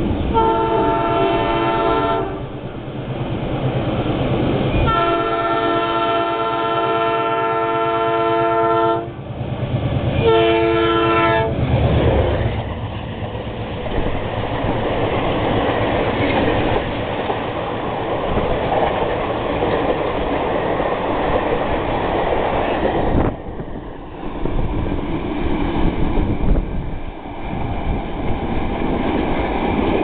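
A WDM-2A diesel locomotive's multi-tone air horn sounding three times, short, long, then short, as the express approaches at speed. The locomotive and a long rake of passenger coaches then pass close by with a loud, steady rush that eases off near the end.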